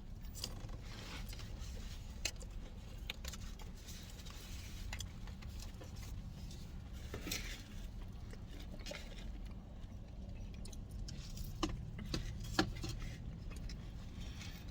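Eating sounds: quiet chewing with small clicks and rustles of food and packaging, a few sharper ticks among them, over a steady low hum.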